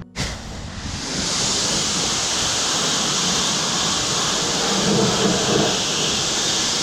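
A jet of water spraying steadily onto a car's bodywork, a strong hiss that builds up over the first second and then holds.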